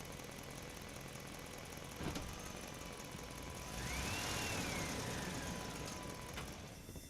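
Radio-controlled model truck running: a steady motor and gear whir with a sharp click about two seconds in, then a louder whine that rises and falls in pitch before the sound cuts off abruptly.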